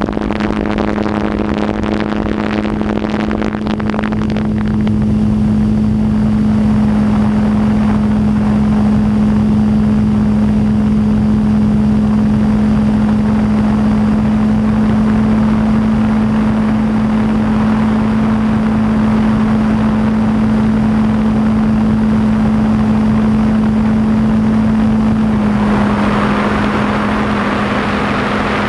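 DJI F550 hexacopter's six electric motors and propellers humming steadily in flight, heard from a camera on the craft. Wind buffets the microphone for the first few seconds. About 26 seconds in, the hum dips slightly in pitch and a rushing hiss grows.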